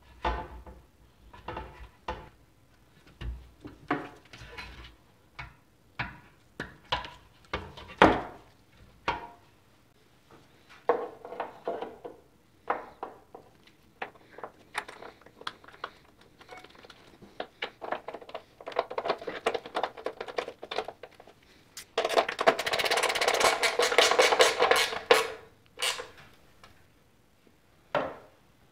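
Metal parts and small tools handled during assembly: scattered clicks, taps and knocks, the sharpest about eight seconds in, then a dense metallic rattle for about three seconds near the end.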